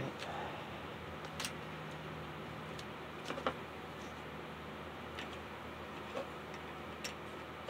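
Light plastic clicks and taps as the body shell of a model locomotive is pried off its chassis and handled. There are several sharp clicks spread out, the loudest about three and a half seconds in, over a faint steady hum.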